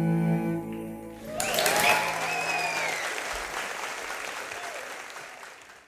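The last held note of the music fades out, then a theatre audience breaks into applause with cheering and whistles about a second and a half in; the applause then fades out.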